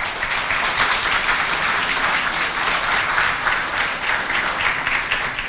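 Audience applauding steadily with dense clapping, beginning to thin out near the end.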